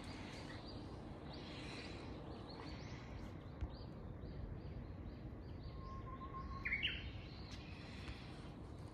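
Birdsong: a quick run of high repeated chirps, then about seven seconds in a Japanese bush warbler (uguisu) sings its 'hoo-hokekyo', a short low whistle rising into a quick, louder flourish.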